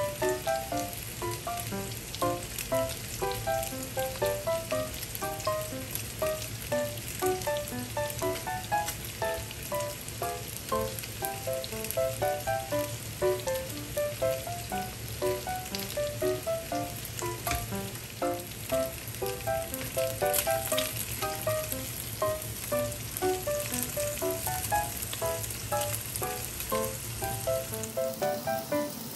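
Salmon steaks frying in a pan, a steady sizzle, under background music: a gentle melody of short, evenly paced notes.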